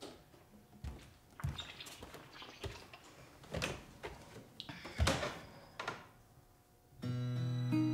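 A person moving about and handling things: a scatter of knocks, thuds and rustles. About seven seconds in, gentle acoustic guitar music begins.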